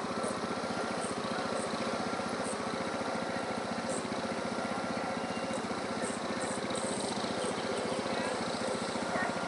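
Small petrol engine running steadily at an even speed, the motor of the lure-coursing setup.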